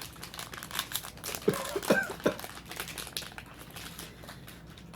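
Foil booster-pack wrappers crinkling as they are torn open and handled, with a few short falling squeaky sounds about two seconds in.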